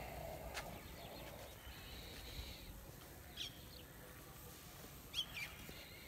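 Quiet outdoor background with a bird chirping: short, quick calls, one group about three and a half seconds in and another about five seconds in.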